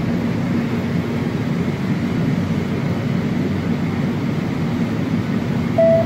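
Steady hum inside a standing AnsaldoBreda P2550 light-rail car, from its onboard ventilation and auxiliary equipment. A short electronic beep sounds near the end.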